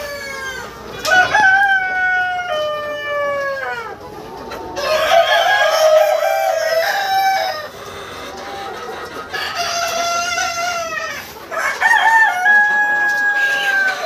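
Australorp roosters crowing: four long crows one after another, each drawn out over a couple of seconds.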